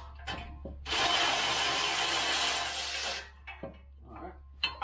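Electric ratchet running for about two seconds while an exhaust header is being unbolted, with light metal clicks and knocks before and after.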